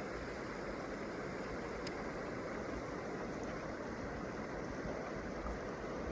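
Steady, even rushing noise with no distinct events, and a faint tick about two seconds in.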